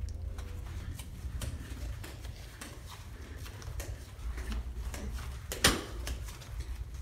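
Footsteps on a carpeted floor, with the phone rubbing and bumping in the hand, and one sharp click about five and a half seconds in.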